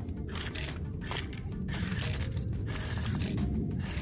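Small electric motor and gear drivetrain of a 1/28-scale RC crawler whirring in throttle bursts that cut out and resume several times, as the truck strains at a rock step too steep for it.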